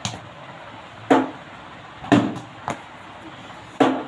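Sharp knocks of a plastic cricket bat and ball during batting practice, four loud ones about a second apart and a softer one between, each ringing briefly in the room.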